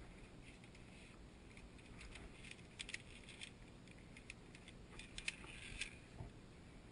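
Faint scattered metallic clicks and scrapes of via ferrata carabiners sliding and knocking along the steel safety cable, with boots scuffing on loose rock. The clicks come in two clusters, around the middle and again near the end.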